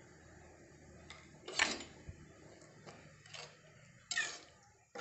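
A ladle stirring salt into thick sambar in a pot: a few short scrapes and knocks against the pot, the loudest about a second and a half in.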